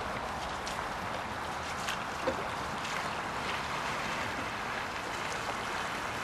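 A few soft splashes of a single-bladed canoe paddle stroking through flat water, over a steady wind-like hiss.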